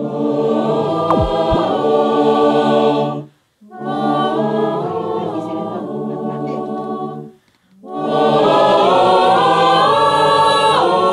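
Mixed choir of men and women singing a cappella under a conductor: three held phrases split by short breaths, the last the loudest.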